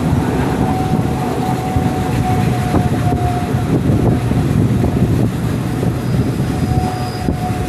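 Passenger train 257 running along the track: a steady rumble with a thin, steady whine above it and a few scattered clicks.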